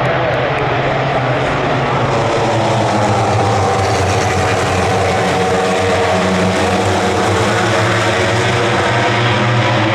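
MotoGP racing motorcycle engines running hard on track, a loud continuous engine note that drifts slowly lower in pitch over the second half.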